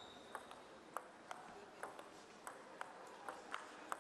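Table tennis rally: the ball clicking back and forth off the rackets and the table, about two to three sharp hits a second. A brief high squeak sounds at the very start.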